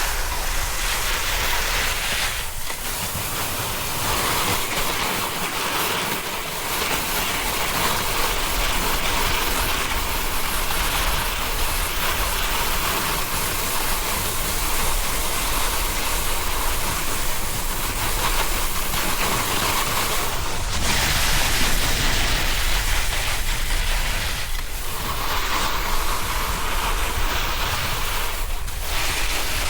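Snowboard sliding and carving over snow, a continuous scraping hiss, mixed with wind rushing over the camera microphone, easing briefly a few times as the rider turns.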